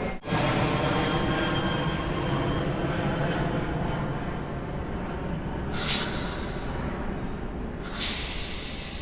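Electric train running through the station, a steady rumble with faint motor tones, broken by two loud bursts of air hiss about two seconds apart.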